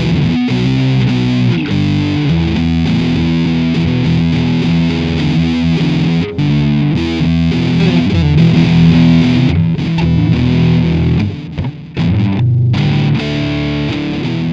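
Outro music: distorted electric guitar rock with a steady beat.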